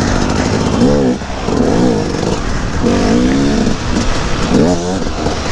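KTM 250 EXC two-stroke dirt bike engine revved in short bursts, its pitch rising sharply several times as the throttle is blipped over rough ground.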